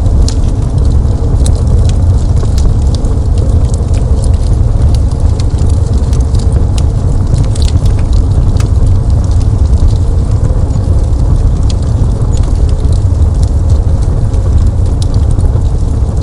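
Fireplace fire burning with a steady low rumble and scattered sharp crackles and pops of burning wood.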